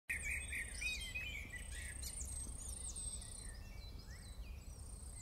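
Field recording of birds singing, many short quick chirps and twittering calls, over a steady low rumble; it cuts in abruptly.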